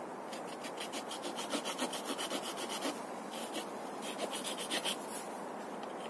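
Leatherman Wave multi-tool blade sawing into a tree branch in quick short strokes, about six a second. The strokes come in runs, with short breaks near the middle.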